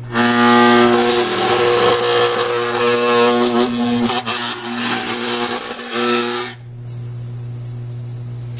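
A 60 Hz electromagnetic degausser humming steadily. For the first six and a half seconds, steel digital calipers passed across its platen to be demagnetized buzz loudly against it, then the buzz stops and only the hum remains.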